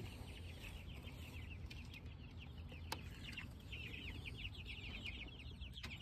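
A brood of young meat-bird chicks peeping, many short falling peeps overlapping continuously. A single faint click comes about three seconds in.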